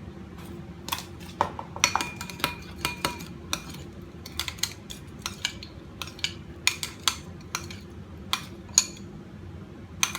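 A metal utensil stirring and whisking balsamic dressing (olive oil, balsamic vinegar and whole grain mustard) in a dish. It makes irregular clinks against the dish, some of them ringing briefly.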